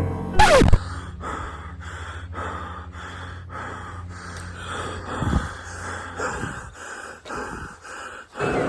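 A dog panting fast and rhythmically, about two to three breaths a second. A short, loud falling swoosh comes about half a second in.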